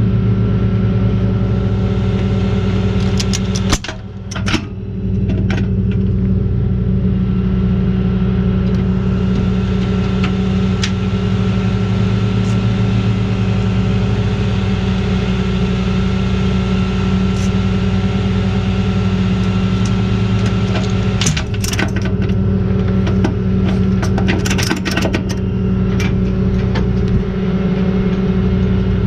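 Flatbed tow truck's engine running at a steady idle, a loud even hum. Short clicks and clanks sound over it a few seconds in and again in a cluster about two-thirds of the way through.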